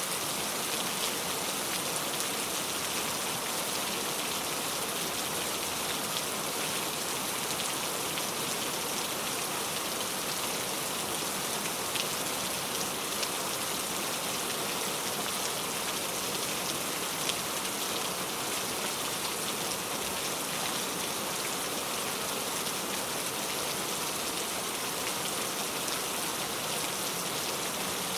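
Heavy rain falling steadily, a constant dense hiss with scattered individual drops.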